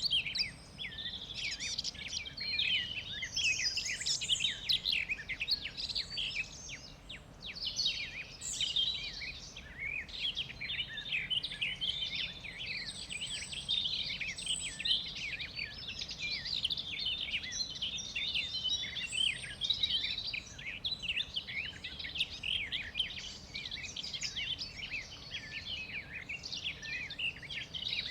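A chorus of many forest birds chirping and singing at once, quick high chirps overlapping continuously.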